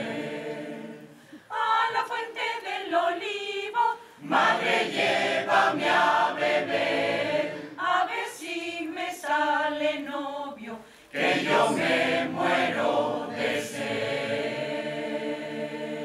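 Mixed choir singing a cappella in Spanish, in phrases with short breaks between them, ending on a long held chord.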